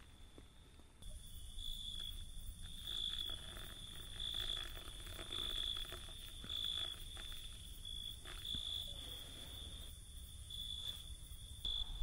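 Insects chirring in a steady high tone that swells in regular pulses about once a second; the sound grows louder about a second in.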